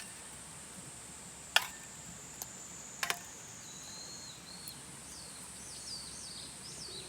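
Outdoor ambience: a steady high-pitched insect drone, a few sharp clicks about a second and a half and three seconds in, and from about halfway a bird singing a run of quick falling chirps.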